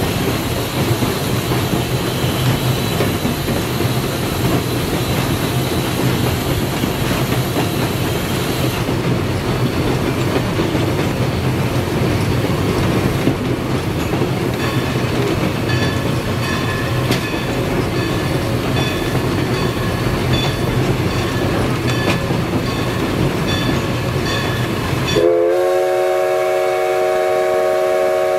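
Cab of a 2-6-0 steam locomotive running, a steady rumble and rattle with a run of regular clicks from about halfway. Near the end the locomotive's steam whistle starts a long, steady blast of several blended tones.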